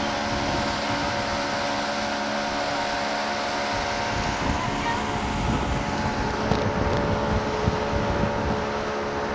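Motorboat engine running steadily at speed, with the rush of water churning in the wake. Wind buffets the microphone, more heavily in the second half.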